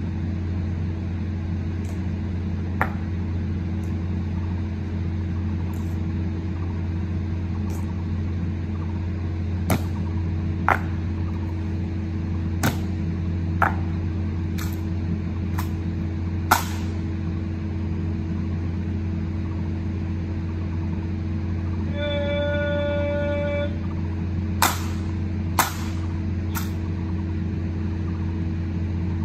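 Sharp wooden clacks of honor-guard rifles being slapped and caught during a rifle-spinning drill, about a dozen scattered through, over a steady low hum. About three-quarters of the way in, a steady beeping tone sounds for under two seconds.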